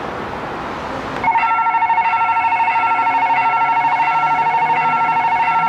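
Railway level-crossing warning bell starting about a second in: a loud, rapid electronic ringing that sounds as the crossing signals begin flashing, warning of an approaching train. Before it, a steady background noise.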